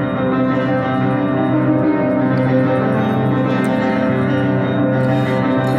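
Ambient music of layered, held tones, steady and unbroken.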